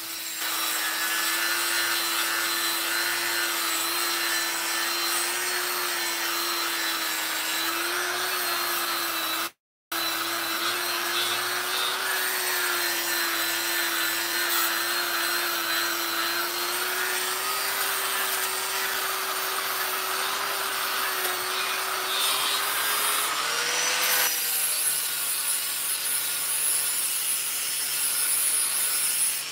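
Handheld electric grinder running steadily while grinding on a metal piece to round off its edges and corners: a constant motor hum with a rasping grind. The sound cuts out for about half a second some ten seconds in, and the motor pitch rises briefly near the end as the load eases.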